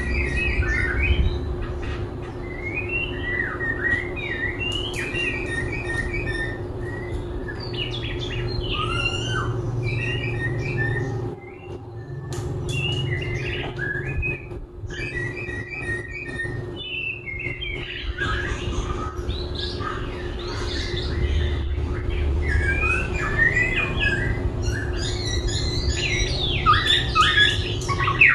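Black-throated laughingthrush singing a long run of varied whistled phrases and chattering notes, switching song types continuously, with a short pause about eleven seconds in. A steady low hum runs underneath.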